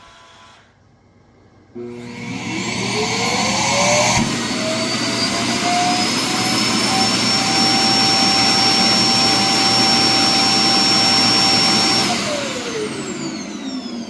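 The Roomba i4's Clean Base self-emptying dock switches on its suction motor a couple of seconds in, its whine climbing in pitch and then holding steady and loud. Near the end it winds down with a falling whine. This is the dock sucking the robot's dirt bin out, under the robot and up into the base's bag.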